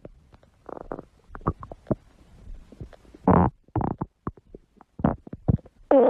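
Stomach gurgling and growling: a run of short, irregular gurgles, the loudest a little over three seconds in. Just before the end a louder, longer growl with a rising pitch begins.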